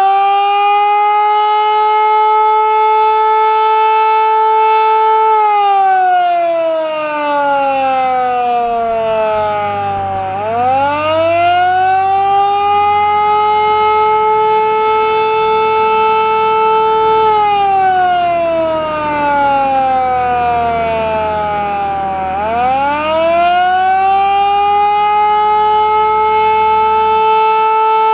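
Federal Signal Model 2 electromechanical outdoor warning siren sounding the attack signal in a loud, slow wail. The pitch winds up, holds high for about five seconds, then slides down for about five seconds before winding up again, twice over. It is the town's weekly Saturday-noon test.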